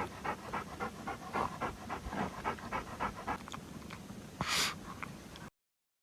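A pet panting rapidly, about five breaths a second. About four and a half seconds in comes one short hiss, the loudest sound, and then the sound cuts off.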